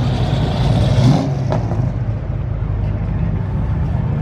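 Car engines running loud and low, with a hissing noise over them that stops about a second in.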